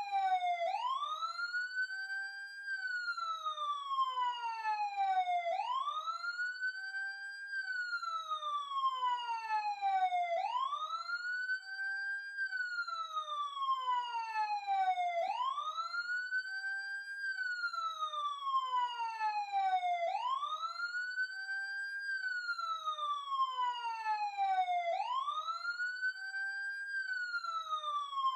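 Police car siren sounding a continuous wail. The pitch sweeps up quickly, then glides slowly back down, repeating about every five seconds.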